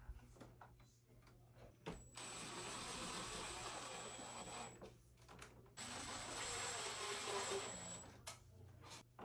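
A small power tool, such as a cordless drill/driver, runs in two bursts of about two and a half seconds each, with a thin high whine. The first burst starts about two seconds in and the second about six seconds in. Each starts and stops abruptly, as when screws are driven while the mini split's covers go back on.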